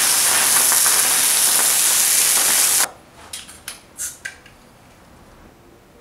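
Steam hissing off a hot investment-shell mold from a bronze pour as it is quenched with water. The hiss is loud and steady, cuts off suddenly about three seconds in, and a few faint clicks follow.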